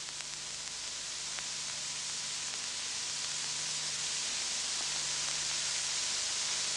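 Rushing-air hiss, the film's sound effect for air drawn through a carburetor as the throttle opens, swelling steadily louder over a faint low hum.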